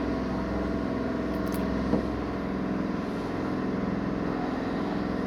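A steady mechanical hum from a running engine or machine, even in pitch throughout, with a light tap about two seconds in.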